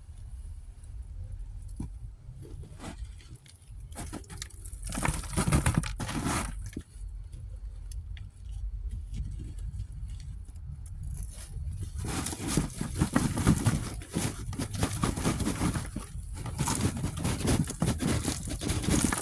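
Garden soil and sweet potato vines scraped and rustled while the plants are dug up, in two stretches of crackly rustling, the second and longer one starting about twelve seconds in, over a steady low rumble.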